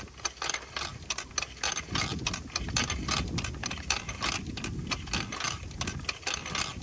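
Belt-driven winch drum turning at an oil well, its steel wire cable clicking and rattling over the drum and pulley in quick, uneven ticks as it is wound, over a steady low rumble.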